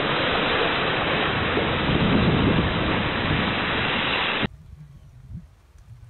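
Strong wind rushing and buffeting the microphone over the sea aboard a sailboat running downwind in rough water. The noise is loud and even, then cuts off suddenly about four and a half seconds in.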